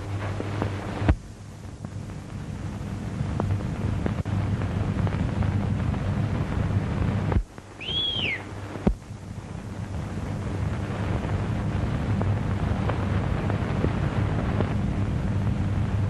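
Hiss and steady low hum of an old 1930s optical film soundtrack, broken by a few sharp clicks, with a short high whistle that rises and falls about eight seconds in.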